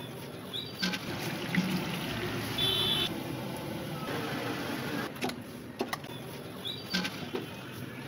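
Cooking sizzle at a street breakfast stall: dosa batter hissing on a hot griddle and vadas frying in oil, with scattered clinks of metal utensils and ladles.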